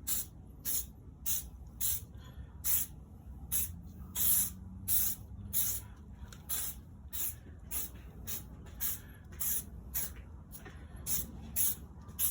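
Aerosol can of Meguiar's headlight coating spraying in short hissing bursts, about two a second, as a second coat goes onto a headlight lens.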